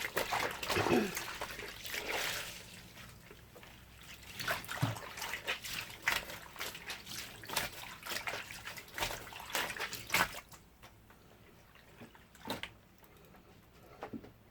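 Clothes being washed by hand in a basin of water: irregular splashing and sloshing, busy for about ten seconds and then dying down to a couple of faint splashes.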